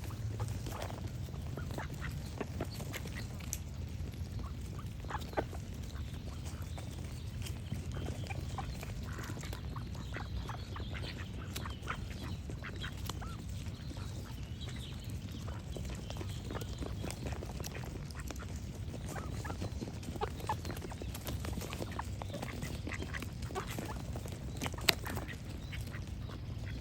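Ducks quacking in many short calls, with birds singing faintly in the background over a steady low rumble. One call near the end is much louder than the rest.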